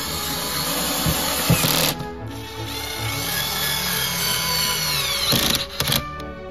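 Cordless power driver whirring as it drives screws into a plastic door-panel carrier: one run ends about two seconds in, then a second longer run whose whine sinks in pitch near the end, followed by a couple of short clicks. Background music plays underneath.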